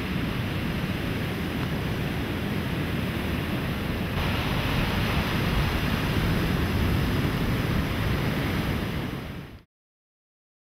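Ocean surf breaking and washing up a sandy beach, a steady wash of waves that grows louder about four seconds in and cuts off shortly before the end.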